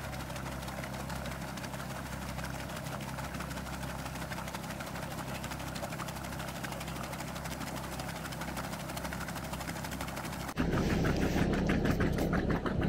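Sherp amphibious ATV's Kubota diesel engine running steadily as it drives slowly through lake water. About ten and a half seconds in, the sound cuts abruptly to a louder, closer engine sound.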